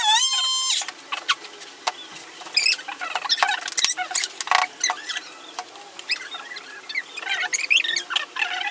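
Electric detail sander running with a steady high whine, switched off abruptly under a second in. After that come scattered light clicks and short high chirps at a much lower level.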